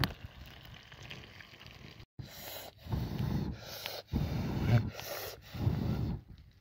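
Fish frying in a pan over a wood fire with a faint sizzle that cuts off suddenly about two seconds in. Then come three loud stretches of low rushing noise, each starting and stopping abruptly.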